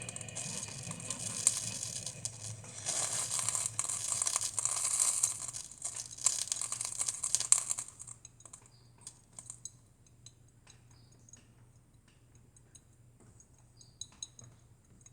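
Cuisinart drip coffee maker sputtering and hissing in irregular crackles for about eight seconds, then dying down to scattered faint clicks: the last of the water boiling through as the reservoir runs dry at the end of the brew cycle.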